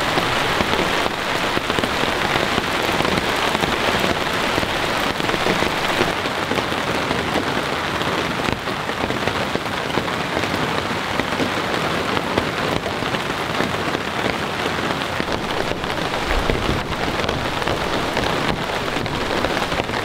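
Steady, fairly heavy rain falling on a camping tarp overhead: a dense, even patter of drops.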